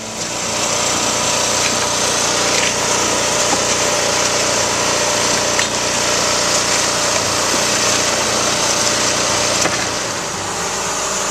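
A small petrol engine running steadily under a loud, hissing machine noise, easing off slightly near the end.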